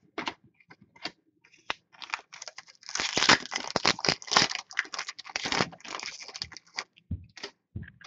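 A foil pack of 2014-15 Upper Deck Ice hockey cards being torn open and crinkled for about five seconds, after a few light clicks of cards being handled.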